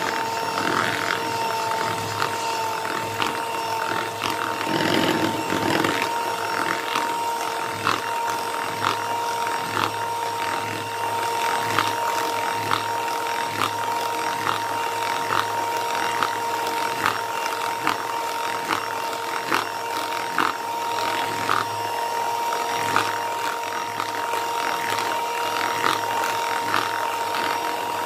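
Electric hand mixer running at a steady whine, its twin wire beaters churning flour into batter in a plastic bowl, with frequent light ticks as the beaters knock against the bowl.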